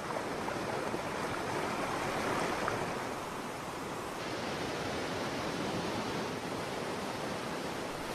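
River rapids rushing: a steady, even noise of white water.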